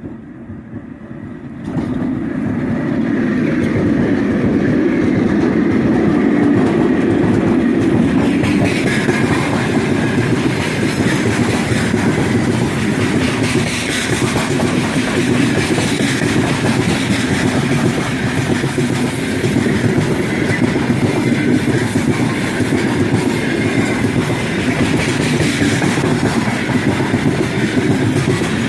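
Heavy freight train passing close behind 2ES5K 'Ermak' electric locomotives. The wagons' wheels clatter over the rails with a steady loud rumble that swells sharply about two seconds in and holds.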